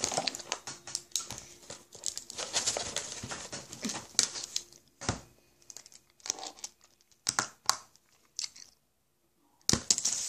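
Chewing-gum pack and wrappers crinkling and tearing as they are handled, in irregular crackly bursts with a few sharp knocks.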